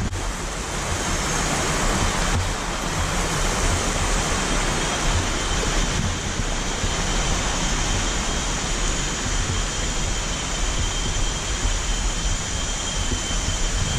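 Steady rush of a shallow mountain stream running over rocks and small cascades, with an uneven low rumble underneath.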